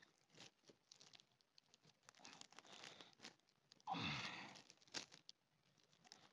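Faint crinkling and rustling of plastic grafting film being stretched and wrapped around a graft on a young tree's stem, with a louder rustle about four seconds in.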